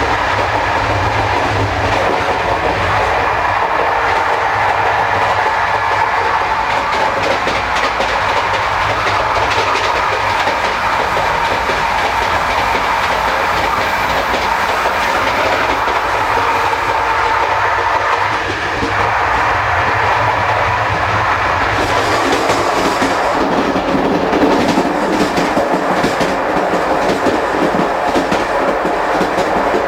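Running noise of a CP Corail passenger coach heard from the gangway connection between two carriages of a moving train: a steady loud rumble and rattle. From about two-thirds of the way through, sharp knocks and rattles come thick and fast.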